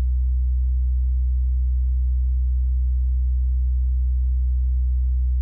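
Steady low electrical hum with faint higher tones above it, unchanging throughout, with no street sounds in it.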